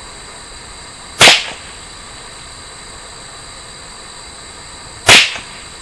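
Two shots from a Ruger 10/22 .22 LR semi-automatic rifle firing CCI standard velocity rounds, about four seconds apart.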